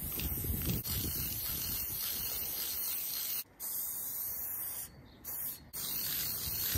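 Aerosol spray paint can spraying in a long, steady hiss, with a few brief breaks in the second half where the nozzle is let off.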